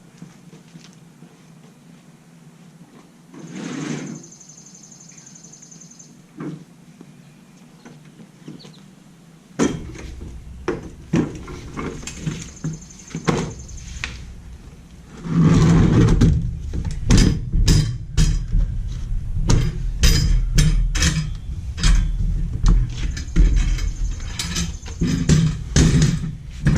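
Knocks, clicks and rustling of objects being handled, starting about ten seconds in after a quiet stretch broken by a few short hissing noises.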